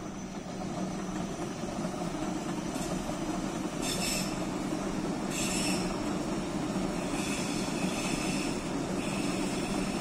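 Electric S-Bahn multiple-unit train running across a railway bridge, its steady rumble growing louder as it comes closer. There are two short high hissing bursts about four and five and a half seconds in, and a thin high wheel squeal in the second half.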